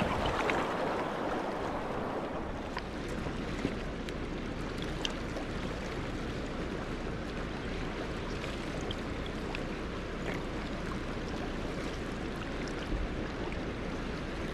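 Rushing river water, loud at first as the kayak runs through riffles, settling after about two seconds into a steady flow of the river over stones, with a few faint small splashes and clicks.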